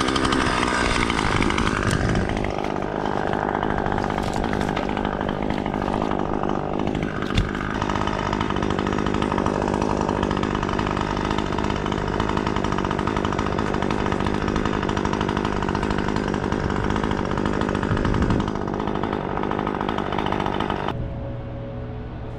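Chainsaw running steadily, its pitch dipping now and then as it takes load. About a second before the end it cuts off abruptly, leaving a quieter, duller hum.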